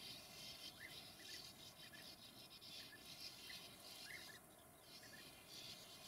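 Faint short chirps of sand martins at their nesting colony, one or two at a time every half second or so, over a soft steady hiss.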